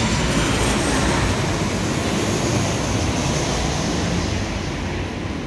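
Sydney Metro Metropolis train running at the platform, a steady rumble that eases off slightly near the end.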